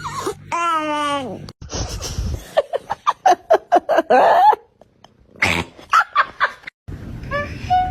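A cat's drawn-out meow falling in pitch, followed by a run of quick, short, laugh-like sounds and a brief call near the end.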